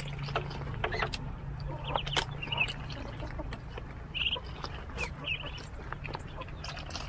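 Ducklings peeping in short high bursts as they feed, with scattered sharp clicks and taps from pecking, over a steady low hum.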